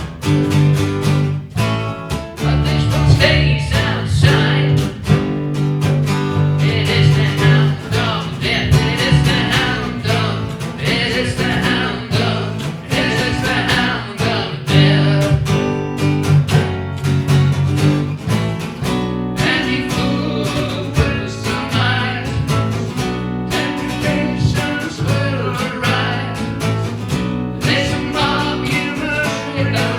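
Live band performance: strummed acoustic guitar chords with singing over them.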